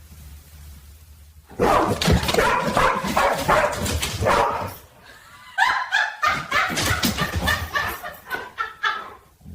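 A dog barking in a rapid run starting about a second and a half in, then, after a short pause, a second run of short, higher barks that come faster toward the end.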